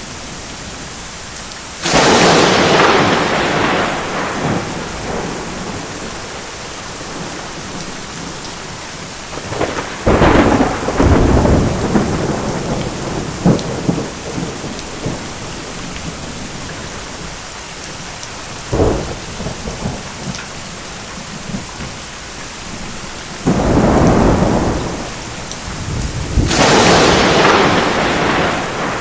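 Thunderstorm: steady rain falling throughout, with thunder cracking about five times, each a sudden sharp clap that rumbles off over a few seconds. The biggest claps come near the start and near the end, with a short, sharp one in the middle.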